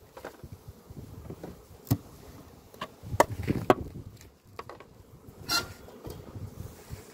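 Honey bees buzzing at an opened wooden hive, with a few light knocks on wood, the sharpest about two, three and three and a half seconds in.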